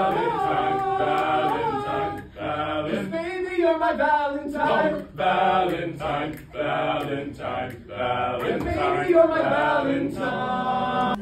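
A small group of young male voices singing together a cappella, with held notes and no accompaniment.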